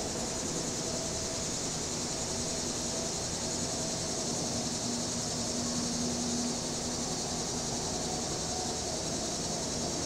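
Cicadas buzzing in a continuous high drone over a constant wash of distant highway traffic. A faint low hum from a passing vehicle rises and fades about midway.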